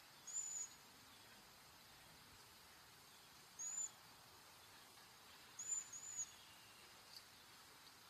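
Cedar waxwing giving its thin, very high whistled call: four short, slightly arched notes, one at the start, one in the middle and a close pair a little after.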